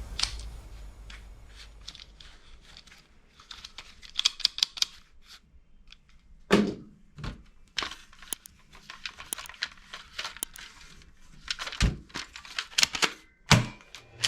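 Plastic toy guns being handled: irregular clicks and clacks of parts being fitted or cocked, with a few heavier knocks.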